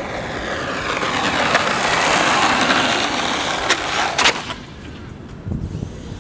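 Redcat Earthquake 8e electric RC truck on a 1350kv sensored brushless motor, geared with a 30-tooth pinion, running flat out on asphalt: a rushing motor-and-tyre noise that builds for about two seconds, then falls away sharply about four and a half seconds in, with a couple of sharp clicks just before.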